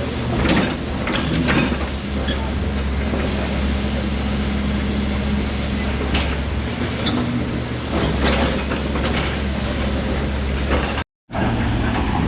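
An engine running steadily with a low hum, with scattered knocks and clatter over it; the sound drops out briefly near the end.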